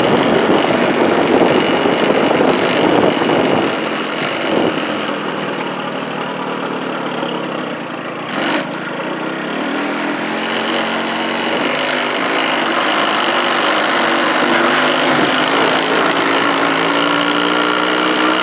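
Engine of a moving vehicle running as it drives along a road, with steady road and wind noise. From about nine seconds in, the engine's pitch rises slowly as it speeds up, then holds. There is a single knock at about eight and a half seconds.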